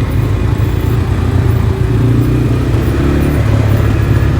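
ATV (quad bike) engine running steadily while riding, its pitch shifting slightly about two seconds in.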